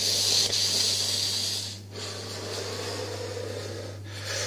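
A man breathing hard in and out through his open mouth in long hissing breaths of about two seconds each, the first the loudest, to cool a tongue burning from a Carolina Reaper chili.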